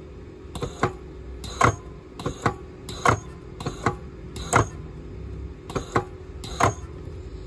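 Battery spot welder firing a series of sharp snaps, about a dozen, often two in quick succession, as its electrode tips weld nickel strip onto lithium-ion cells.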